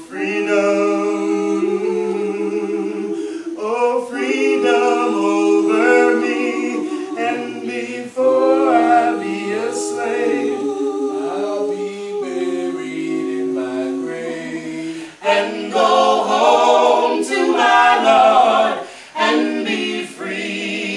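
A group of voices singing a cappella in harmony, with no instruments. The singing swells louder and fuller about three quarters of the way through.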